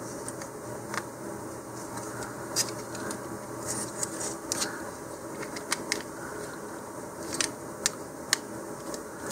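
Plastic model-rocket fins being snapped and slid into a plastic fin can: scattered light clicks and handling noises at irregular intervals, over a steady low hum.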